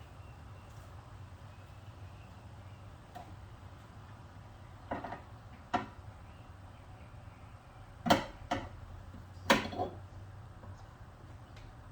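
Sharp plastic knocks and clicks, about six in all, mostly in the second half, as a pry tool nudges a liftgate trim panel's plastic push rivets toward their holes and the panel is pressed against them. A low steady hum runs underneath.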